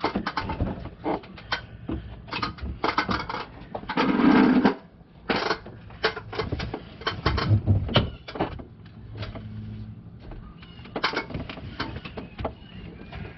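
Hands working among the belt-drive pulleys of a Toyota Tacoma's 4.0L V6 with the belt off, spinning the idler pulleys by hand to check their bearings: scattered clicks, knocks and light rattles, with a louder burst of noise about four seconds in.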